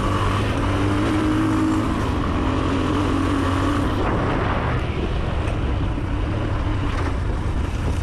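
Tekken 250cc enduro motorcycle engine running at a steady riding pace on a dirt forest trail, with wind on the microphone and a rushing noise throughout. About halfway through, the engine's steady tone drops back, leaving mostly the wind and the rush.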